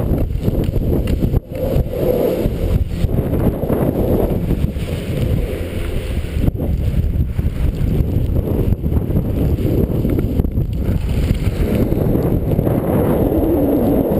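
Strong wind buffeting the microphone of a helmet-mounted camera: a loud, gusty rumble with no letup, while skis slide over snow.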